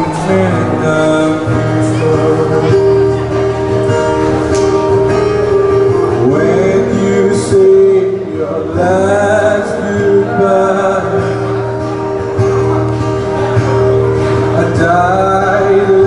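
Live acoustic pop song: a man singing to his own acoustic guitar, with a keyboard holding sustained chords underneath.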